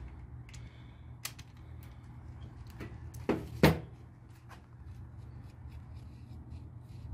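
Metal tools and engine parts clinking as a connecting-rod cap is loosened with a ratchet and taken off a MerCruiser 3.0 L crankshaft: scattered light clicks, with two sharp knocks less than half a second apart near the middle, over a low steady hum.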